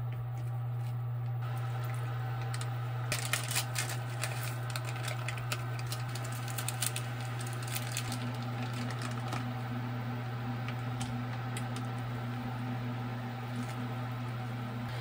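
Quick, irregular clicking and tapping, thickest from about three to seven seconds in and then sparser, over a steady low hum.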